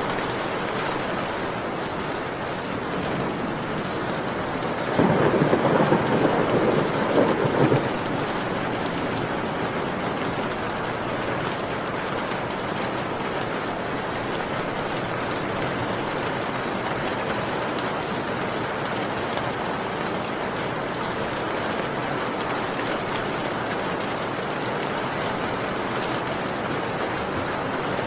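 Steady rain falling, with a clap of thunder about five seconds in that rumbles on for about three seconds and is the loudest sound.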